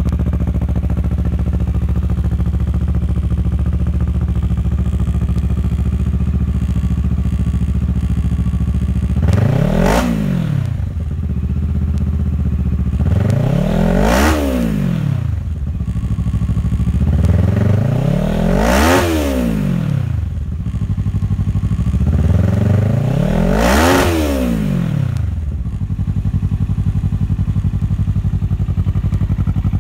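2013 Kawasaki Ninja 650's parallel-twin engine through a Two Brothers aftermarket exhaust, idling steadily. About a third of the way in, the throttle is blipped four times, every four to five seconds; each rev climbs and falls back to idle. Near the end it settles back to a steady idle.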